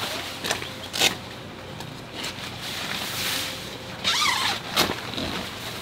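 Nylon tent fabric rustling and flapping as the inner tent's door panel is handled, with a few sharp clicks. About four seconds in comes a short, rising-and-falling animal call.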